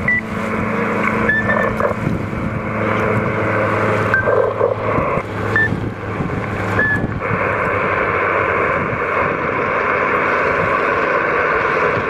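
27 MHz CB radio receiver on lower sideband hissing with band-limited static between transmissions. Several short beep tones sound in the first half, with faint garbled signals under the noise.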